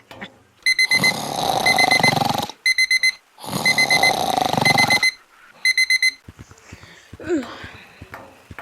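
Digital alarm clock beeping in quick groups of four, about once a second, over two long, loud, rough screeching cries of about a second and a half each. The beeping stops about six seconds in, leaving faint clicks and rustling.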